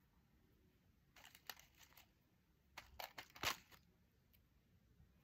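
Faint crinkling and light clicks as press-on fake nails and their plastic packaging are handled, in two short spells about a second and three seconds in.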